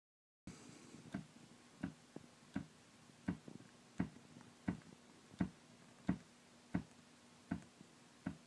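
A 1966 Fender Super Reverb guitar amp ticking through its speaker: sharp pops evenly spaced about every 0.7 seconds over a faint steady hum. The ticks come with blue flashes in the 6L6 power tubes and are the sign of bias drift. The owner traced it to an out-of-tolerance 220K resistor with a suspected cold solder joint in the bias circuit.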